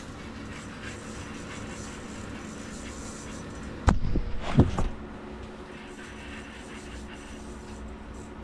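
Steady low hum, with a sharp knock and a few thumps about four seconds in as the camera is picked up and moved.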